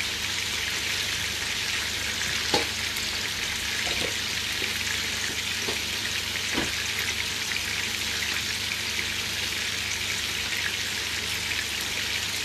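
Chicken pieces frying in oil in a frying pan: a steady sizzling hiss with a few faint pops.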